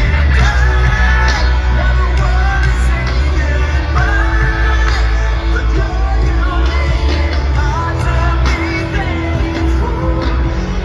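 Rock music with a singer over a heavy, steady bass line.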